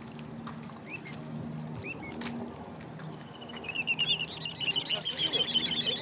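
Little ringed plover calling: a fast run of short, high chirps that starts about halfway through, rises slightly and grows louder, after a few single short chirps earlier. A low steady hum lies underneath.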